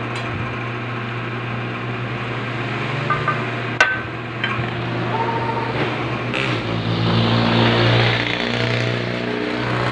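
Steady engine hum from passing road traffic, swelling louder past the middle. A couple of sharp metal taps about four seconds in: a hammer knocking a flywheel held in a lathe chuck to bring it on centre.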